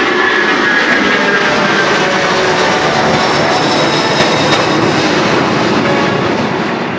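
Aircraft engines running loud, a dense rushing roar with a faint whine that slowly falls in pitch, as a plane passes by.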